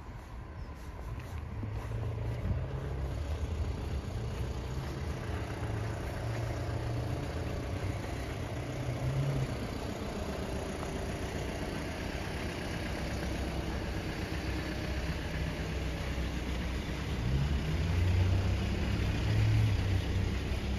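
Car engines running in a slow traffic queue beside the pavement, a steady low rumble that grows louder near the end.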